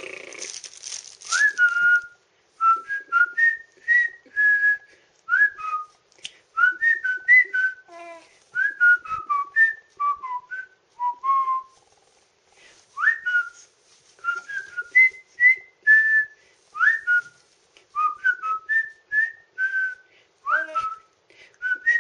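A person whistling a wandering tune of short, clear notes, many of them slid up into. It starts after a brief rustle about the first second or two.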